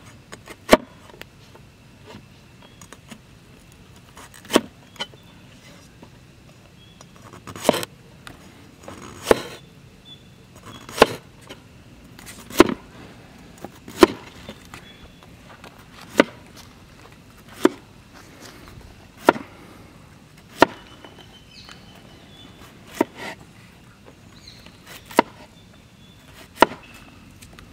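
Kitchen knife slicing through bitter gourd and striking a wooden cutting board, one sharp knock roughly every second and a half.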